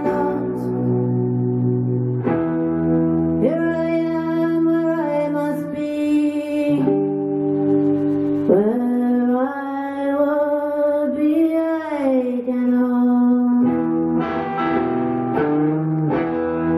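A woman singing live over her own electric guitar: long held sung notes that slide from one pitch to the next above steady strummed guitar chords.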